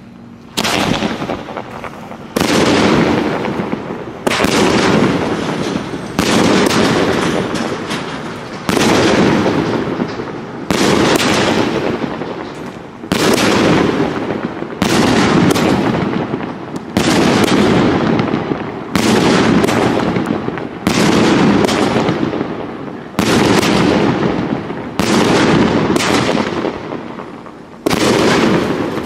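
A "Banana Surprise" consumer firework cake firing shot after shot, about one every two seconds. Each shot starts suddenly and fades away over the next two seconds until the next one goes off.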